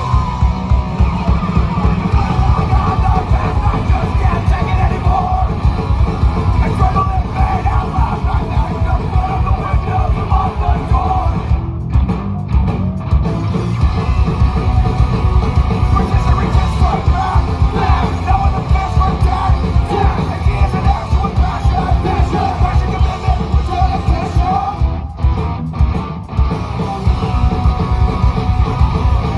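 Live punk rock band playing loud and fast, with a driving drumbeat and yelled lead vocals; the band drops out briefly twice, about twelve seconds in and again near the end.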